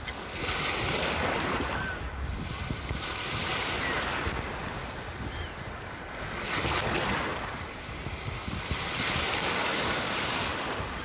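Sea waves washing onto the shore in repeated surges, each swell of hiss building and fading over a couple of seconds, about four times.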